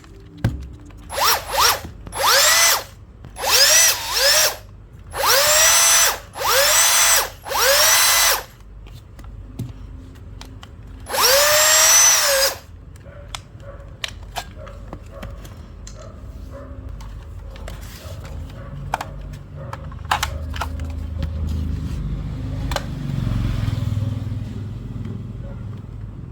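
Bosch cordless drill motor run in a series of short trigger pulls, each a whine that rises as it spins up. After a pause comes one longer run, then scattered clicks and handling noise.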